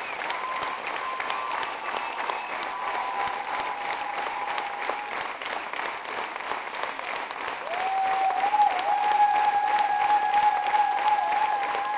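Theatre audience applauding at a curtain call, a dense patter of clapping, swelling a little in the second half. A long, slightly wavering high tone rises above the applause for the last few seconds.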